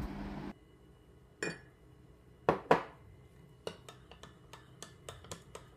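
A long metal spoon clinking against a glass measuring jug: a few separate clinks, then from about halfway a quick, regular run of clinks, about four a second, as it stirs a thick milk mixture.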